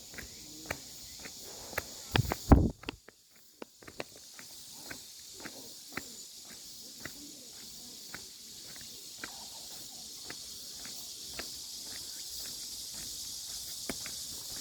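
Footsteps on an outdoor path at a steady walking pace, about two steps a second, with one louder thump and rustle a little over two seconds in. A steady high hiss runs underneath and grows slightly louder later on.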